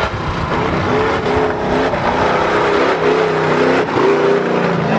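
Mega mud truck's big engine revving up and down over and over as it powers through the mud bog track, loud and continuous.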